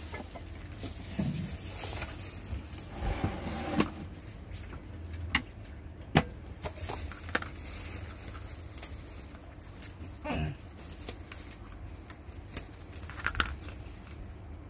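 Plastic film wrap rustling and crinkling as it is picked at and pulled off a new rice cooker's metal inner pot, with scattered sharp clicks and light knocks of handling.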